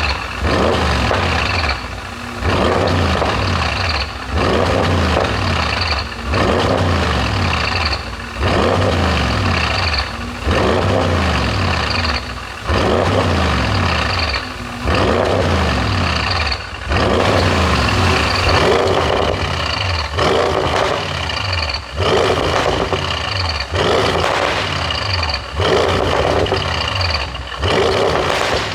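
Audi S6's 4.0 TFSI twin-turbo V8, running a tune made for exhaust pops, revved over and over in short blips about every two seconds, the engine note rising and falling back between each blip.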